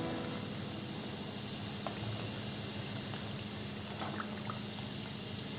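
Kombdi vada deep-frying in a steel kadhai of hot oil: a steady sizzle, with a couple of faint clinks of a steel slotted spoon about two and four seconds in.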